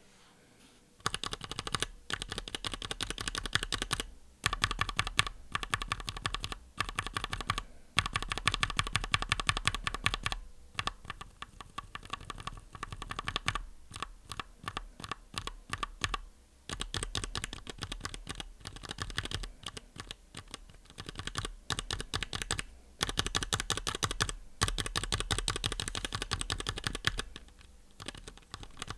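Mechanical keyboard keys fitted with Everglide Jade tactile switches being pressed rapidly in runs of clicks with short pauses between them. The keys compared are a stock Jade switch and one with lubed stem top-out and a switch film, the stock one sounding a little rattly.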